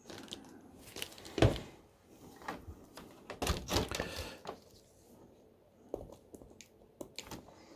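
Handling noises from a laptop display being taken apart: a few sharp plastic clicks and taps with short rustling scrapes, the loudest click about a second and a half in and a busier stretch in the middle.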